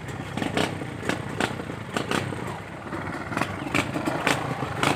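A vehicle engine running low, with irregular sharp knocks and rattles scattered through it, about ten in all.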